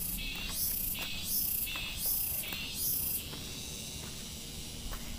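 Insects chirping high-pitched in rhythmic pulses, about one every two-thirds of a second, which stop about three seconds in and leave a steady high insect hiss. Wind rumbles low on the microphone throughout.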